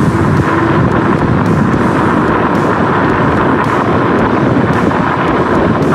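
Kaabo Wolf Warrior 11+ electric scooter riding over a corrugated, loose-gravel dirt road: a steady rumble and crackle from its 11-inch pneumatic tyres, mixed with wind buffeting the microphone.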